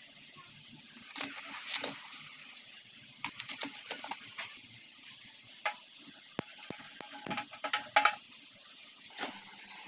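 A steel spoon clinking and scraping in plastic kitchen jars and against a steel pan, in a quick run of sharp clicks and taps with pauses between, as sugar and tea are spooned in for chai. A faint steady hiss runs underneath.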